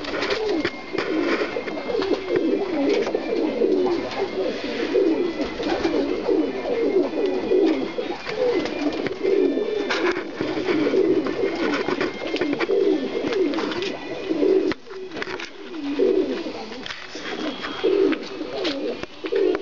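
English tippler pigeons cooing, several birds at once in a continuous overlapping warble, with now and then a short sharp knock.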